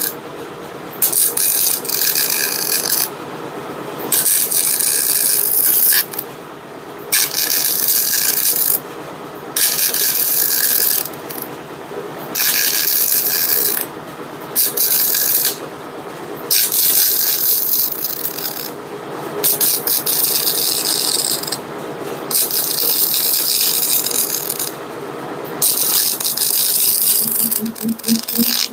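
MIG welder laying a bead along a crack in a steel Eaton rear axle housing, the crack that was leaking gear oil. The arc crackles and sizzles in runs of one to three seconds, stopping briefly between runs, over a faint steady hum.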